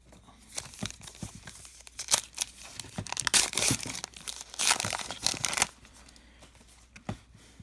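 Hands tearing open the wrapper of a baseball card pack, 2019 Topps Allen & Ginter, with crinkling and ripping in uneven bursts that are loudest between about three and five and a half seconds in. Near the end there is only the faint handling of the cards.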